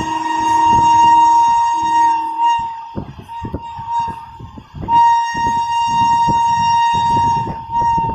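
Train horn sounding in long steady blasts, with a second strong blast starting about five seconds in. Underneath, the train's wheels clatter and knock over the rail joints.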